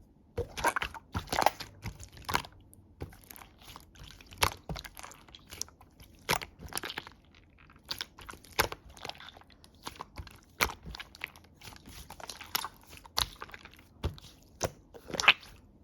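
Jelly slime being pressed and squished by hand, making irregular sticky clicks and crackling pops, several a second.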